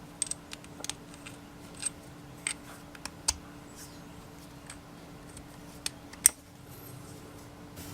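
Scattered light clicks and taps of small metal tool parts, the screwdriver bits and bit adapter of a manual impact driver set, being handled and taken from their case, with one sharper click about six seconds in. A faint steady hum lies underneath.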